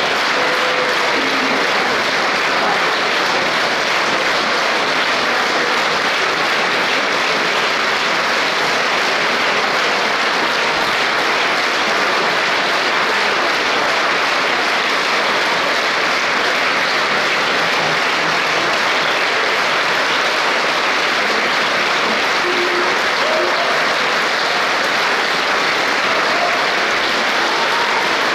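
Large concert audience applauding, dense and steady clapping that neither builds nor fades.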